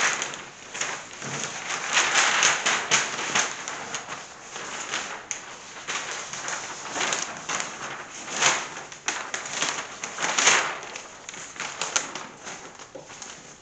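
Large paper plan sheets rustling and crinkling as they are handled and turned over, in many short swishes and crackles of uneven loudness.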